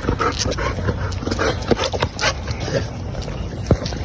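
A dog whining and yipping in a string of short sounds while straining on the leash, over a steady low rumble.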